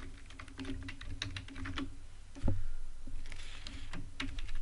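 Typing on a computer keyboard: a quick run of keystrokes, one heavier knock about halfway through, then a few more keys.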